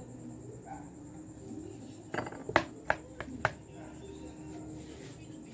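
A metal utensil clinking and tapping against a glass bowl, about five sharp clinks in quick succession near the middle, as avocado flesh is knocked off into the bowl.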